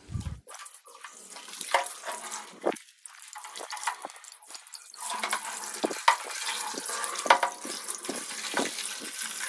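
Water from a garden hose splashing into an empty glass aquarium sump as it is filled to rinse it and check it for leaks. The splashing grows louder and fuller about halfway through.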